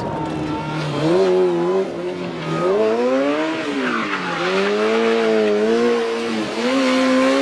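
Formula SAE race car's four-cylinder Honda CBR600 motorcycle engine revving, its pitch climbing and dropping several times as the car drifts, with tyres skidding on the pavement.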